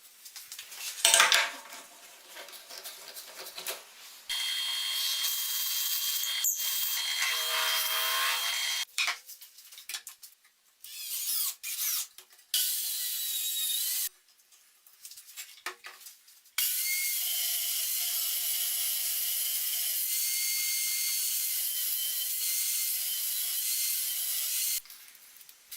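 Power saw cutting wood in three runs: a few seconds, then briefly, then about eight seconds steady near the end. Between the cuts there are short knocks and handling clatter, with a sharp knock about a second in.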